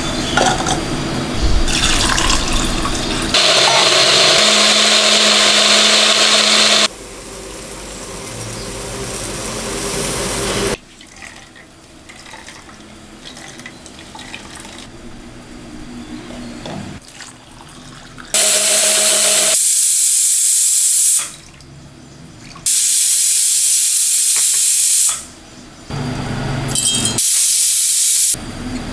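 Water running from a tap into a sink in several bursts, turned on and off: about four spells of running water, each starting and stopping abruptly.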